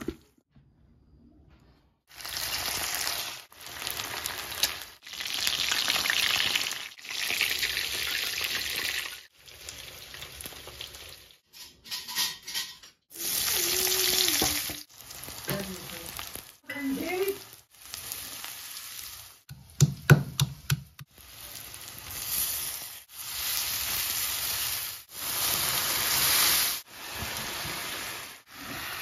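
Hot oil sizzling in a wok as sliced onions and spiced chicken wings fry and are stirred. The sizzle comes in short stretches that start and stop abruptly, with a few sharp clicks about twenty seconds in.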